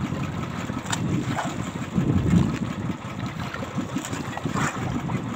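Low, uneven rumble aboard a small fishing boat at sea, from sea wind, water and the boat's running gear. Two brief sharp clicks come through, about a second in and near the end.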